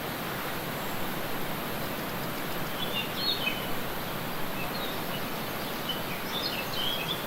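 Waterfall rushing with a steady, even roar of falling water. A bird chirps faintly a few times, about three seconds in and again near the end.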